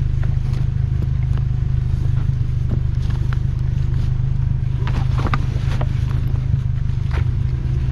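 A 4x4's engine running steadily at a low hum, with scattered clicks and knocks on top, a small cluster of them about five seconds in.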